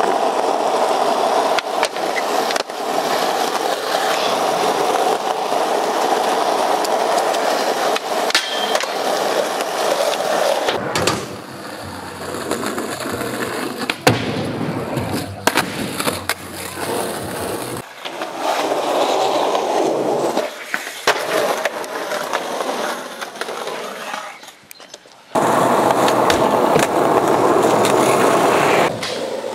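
Skateboard wheels rolling on skatepark concrete, with sharp pops and board-and-wheel impacts from tricks and landings. The rolling sound changes abruptly a few times, as separate runs follow one another.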